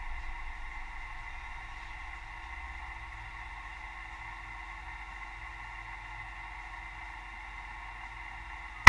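CNC milling machine running with a steady, quiet hum of several fixed tones, easing down over the first second and then holding level, as between cuts.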